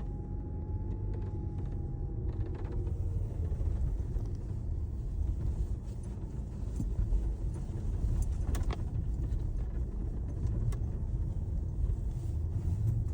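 Steady road rumble inside the cabin of a moving Chery Tiggo 8 Pro Max, with a few short sharp creaks from the squeaking sunroof, two of them standing out about eight and a half and ten and a half seconds in.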